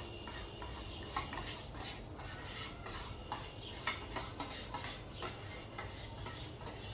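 Spoon clinking and scraping against a bowl and pan in an irregular run of small clicks, as melted chocolate is scraped into hot milk.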